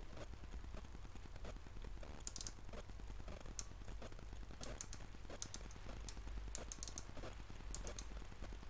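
Sealey SM27 mini metal lathe taking a light cut: scattered clusters of small, sharp clicks over a low steady hum.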